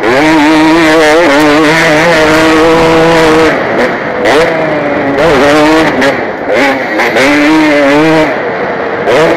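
KTM 250 motocross bike engine under race load, heard from the rider's helmet camera. It is held high for the first few seconds, then the throttle is chopped and reopened several times, with a long pull again near the end.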